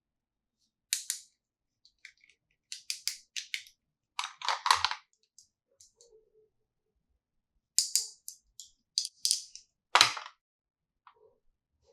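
Small plastic toy pieces and packaging being handled: irregular clusters of sharp clicks and short crinkly rustles, with one louder snap about ten seconds in.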